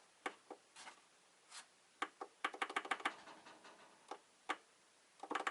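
Scattered sharp clicks and taps from hands working the UPS unit and its wiring, with a quick run of about ten clicks in the middle.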